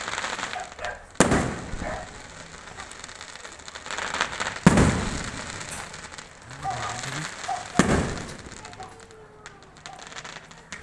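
Fireworks going off: three loud bangs, about a second in, near the middle and about three seconds later, with crackling between them.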